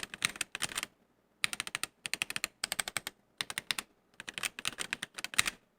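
Typing on a GamaKay K66 mechanical keyboard with an acrylic case and plateless-mounted switches, rapid key clicks in bursts with short pauses between them.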